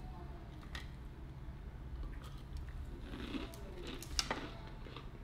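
Close-up eating sounds: biting and chewing fried food, with scattered small crackles and clicks and one sharp click about four seconds in, over a steady low room hum.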